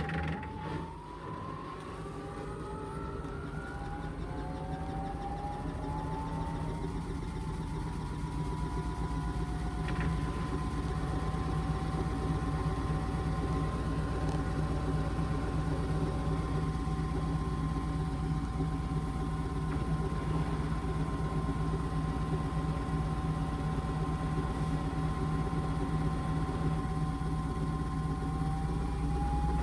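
Indesit washing machine's drum motor winding up into an intermediate spin. Its whine rises in pitch over the first several seconds, then holds steady over a low hum as the drum spins, getting gradually louder. A new rising whine starts near the end as the drum speeds up again.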